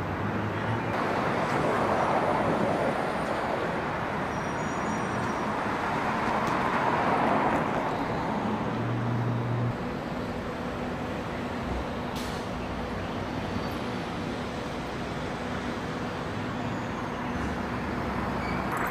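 Street traffic noise, with vehicles passing about two and seven seconds in over a steady low hum.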